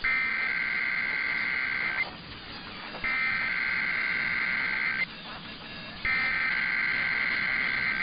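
Emergency Alert System SAME header data bursts: three warbling digital tone bursts of about two seconds each, a second apart, that encode the start of a new EAS alert.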